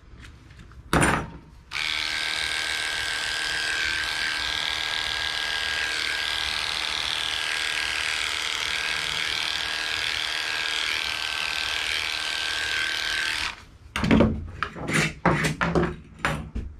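Heiniger cordless dog clipper switched on about two seconds in, running steadily with an even hum for about twelve seconds as it trims a Shih Tzu's feet, then switched off. A few clicks and knocks follow near the end.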